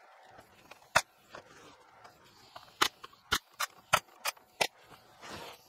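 Brad nailer firing seven brads, driving half-inch Baltic birch strips into a particle-board shelf: one sharp shot about a second in, then six more in quick succession. A brief rush of noise follows near the end.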